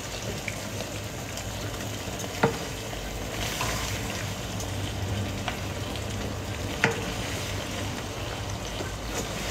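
Pasta being stirred with spoons in a wide pan on the stove, with a steady low sizzle. A spoon clinks sharply against the pan twice, about two and a half seconds in and again near seven seconds.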